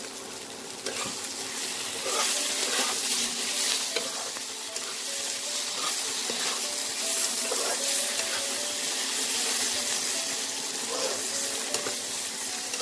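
Cubed capsicum, onion and tomato in masala sizzling in a non-stick kadai while a metal spatula stirs and scrapes them in repeated strokes. The sizzle and stirring get louder about two seconds in.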